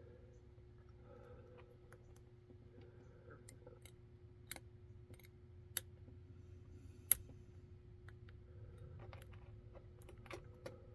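Faint metallic clicking and scratching of a hook pick working the pins of a Kaba Kik lock cylinder held under tension. Three sharper clicks come around the middle, the loudest about seven seconds in, and a few more near the end.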